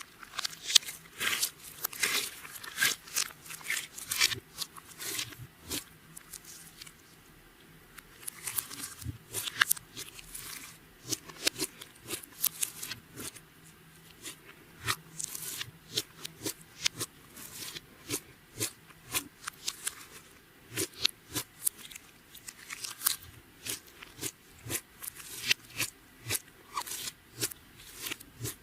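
Clear slime being kneaded and squeezed by hand, giving a quick irregular run of sticky clicks and pops, with a pause of about two seconds early on.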